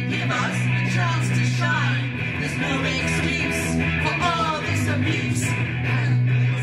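Live rock-style band music: electric guitar playing short melodic phrases over a steady bass line.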